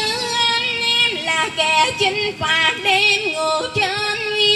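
Cải lương-style singing: a voice holds long, ornamented notes with wide vibrato and slides between pitches, over a live guitar accompaniment.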